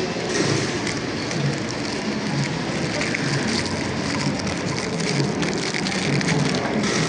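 Steady din of a busy food court: a crowd murmuring with scattered clinks and clatter.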